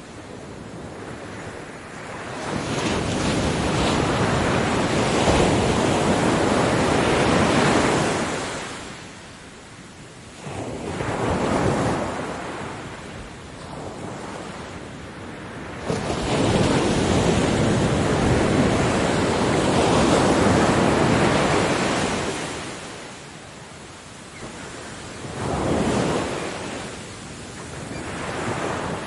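Ocean waves breaking on a beach and washing up the shore, the surf rising and falling in surges every few seconds, with two long, loud breakers and several smaller ones between.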